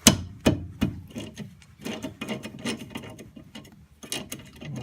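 A wrench on a 14 mm brake caliper bolt: three sharp taps in the first second to jar the bolt loose, then a ratchet clicking quickly as the bolt is turned out.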